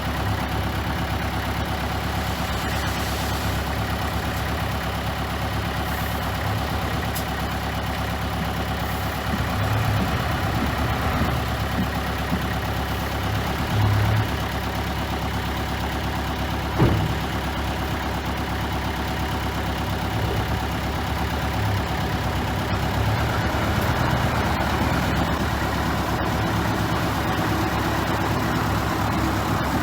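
Engine of heavy earthmoving machinery running steadily, with small swells in level and one sharp knock about seventeen seconds in.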